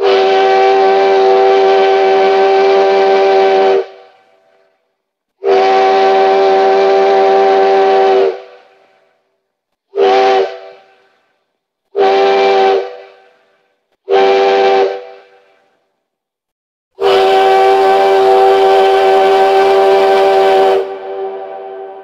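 Sierra Railway No. 3's steam locomotive whistle blowing a chord of several notes: two long blasts, three short toots about two seconds apart, then a final long blast, each dying away with a brief echo.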